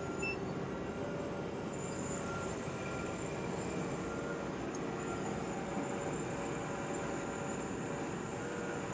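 Wirtgen 210Fi asphalt milling machine running steadily, an even mechanical drone with a faint steady hum, heard from the operator's seat.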